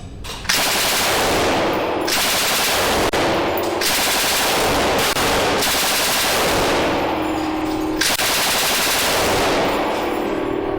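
Machine gun firing on full automatic in long, back-to-back bursts that start about half a second in and blur into one continuous racket of shots.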